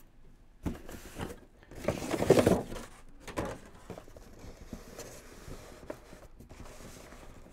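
Cardboard trays and plastic blister packs of toy cars rustling and scraping as they are handled inside a cardboard case, with a louder scrape about two seconds in, then faint rustling.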